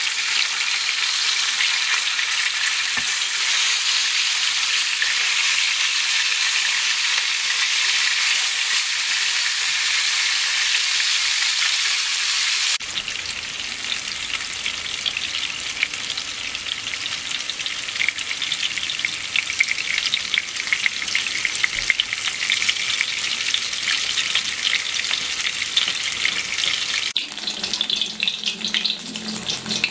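Fish pieces frying in hot oil in a pan: a dense, steady sizzle. About halfway through it changes abruptly to a more crackly sizzle with many small pops, and it shifts again near the end.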